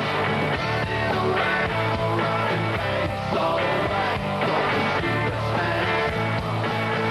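Live rock band playing: electric guitars, bass and drums with a steady beat, and a singer's voice over them.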